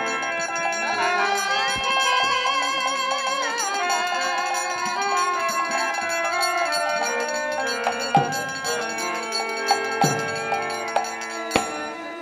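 Bengali naam kirtan music: a flute melody with held and sliding notes over steady sustained tones, and a few sharp drum strokes in the second half.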